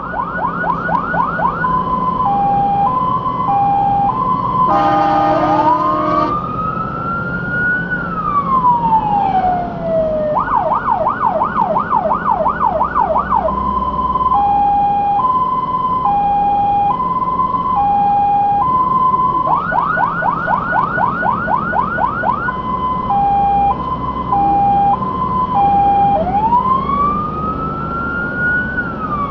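Fire engine siren cycling through its patterns: a fast yelp of rapid up-and-down sweeps, a two-tone hi-lo alternation and a slow rising and falling wail. A short horn blast comes about five seconds in, and the truck's engine runs underneath.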